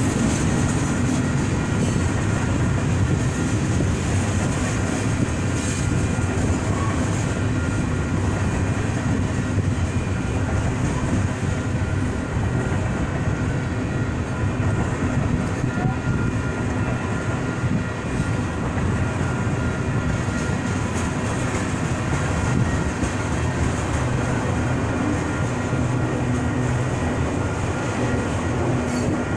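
Freight train cars rolling steadily past through a grade crossing: an even, continuous noise of steel wheels running on the rails.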